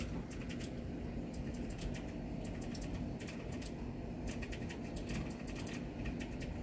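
Computer keyboard keys being typed: irregular runs of quick, sharp clicks over a steady low hum.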